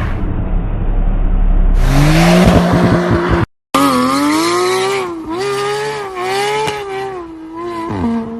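Porsche engine revving hard with tyre noise, in two clips cut together with a short break about three and a half seconds in; in the second the engine note rises and falls repeatedly.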